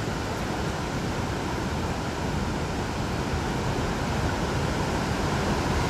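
Steady rush of flowing river water running over a shallow riffle close to the microphone.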